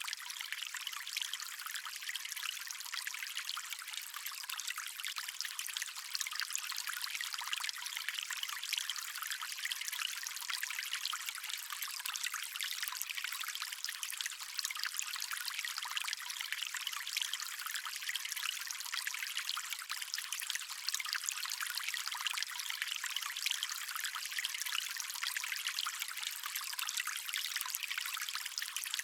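Stream water running and trickling over rocks in a steady, continuous babble. It sounds thin and hissy, with no low rumble.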